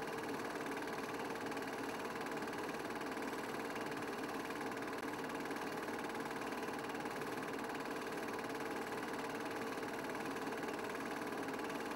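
Steady mechanical whirr of a film projector running, even and unchanging throughout.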